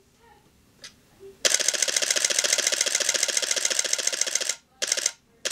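Canon 7D DSLR shutter firing in a rapid continuous burst for about three seconds, then stopping abruptly while the shutter button stays held: the buffer has filled on a slow 133x CF card. Near the end come two short clusters of shots as the camera frees buffer space.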